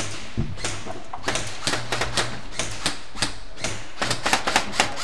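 Airsoft guns firing: irregular sharp snaps and clicks of shots and BB hits, coming faster in a quick run about four seconds in.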